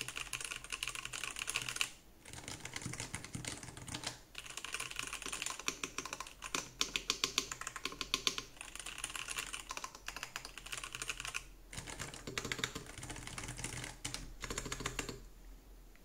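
Typing on two Hall-effect keyboards in turn, a Drunkdeer G75 and then a low-profile Nuphy Air60 HE: fast runs of key clacks broken by short pauses.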